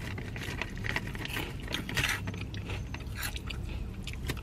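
Hot Cheetos being chewed close to the microphone: a run of crisp, irregular crunches as the puffs are bitten and broken up.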